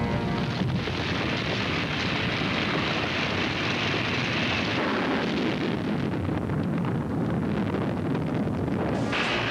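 Steady rushing roar of a volcanic eruption sound effect on the soundtrack. A bright hiss in it is strongest during the first half and fades about five seconds in, then comes back near the end.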